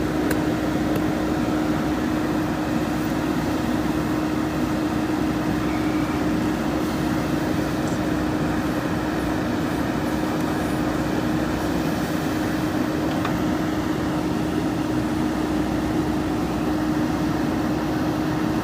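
Diesel engine of a JCB 3DX backhoe loader running at a steady, even speed, with a constant hum and no change in revs.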